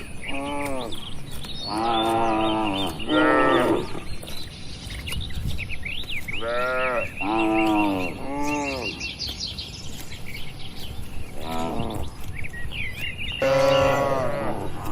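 Cattle mooing: a string of about eight moos in clusters of two or three, each call rising and falling in pitch.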